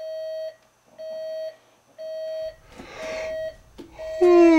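Zenith digital alarm clock beeping: a steady mid-pitched beep about half a second long, repeating once a second. A rustle comes in the middle, and near the end a louder voice falling in pitch breaks in over the beeps.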